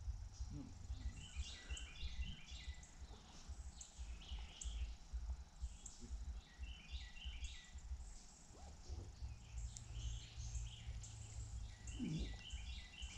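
A songbird repeating the same short stepped phrase three times, about five seconds apart, over a low, uneven rumble.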